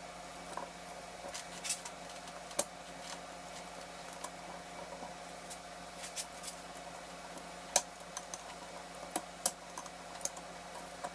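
Scattered metallic clicks and clinks of a J-series transmission gear shaft assembly being shifted through its gears by hand, checking that everything shifts as it should. A steady hum runs underneath.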